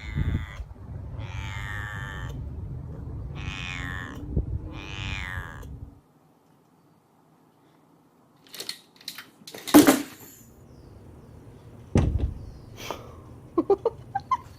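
A cat meowing four times, each call bending in pitch. After a short silence, a few sharp knocks and thumps, the loudest a little past halfway.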